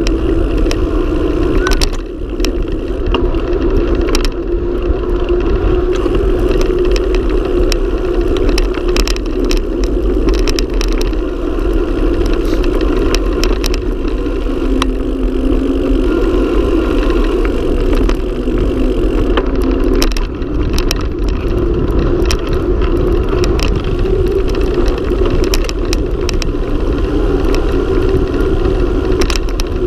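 Wind rushing over the camera's microphone and tyres rumbling on asphalt during a fast mountain-bike descent, with frequent short clicks and rattles as the bike and camera mount jolt over bumps and potholes in the road.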